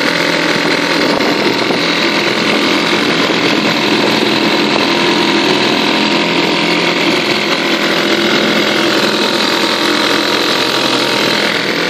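British Seagull Century two-stroke outboard motor running at a steady speed on a dinghy.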